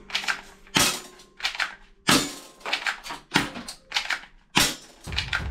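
Toy guns clattering and knocking against one another as hands rummage through a box full of them: a run of irregular sharp clacks, one or two a second.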